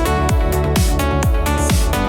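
Electronic dance music: a kick drum beating steadily about twice a second under held synth chords.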